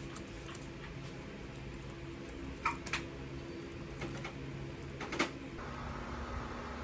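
Laptop keyboard typing: faint scattered key clicks with a few sharper taps, over a steady low room hum. About five and a half seconds in, the background switches to a different quiet room tone with a faint higher hum.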